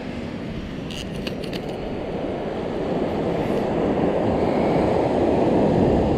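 Surf breaking on the beach with wind buffeting the microphone: a steady rush that grows louder through the second half, with a few light clicks about a second in.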